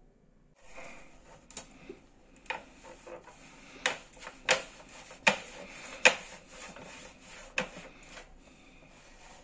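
Boilie rolling table at work, rolling dough into bait balls in its grooved channels: a steady rubbing slide with several sharp, irregular knocks as the plates and balls move.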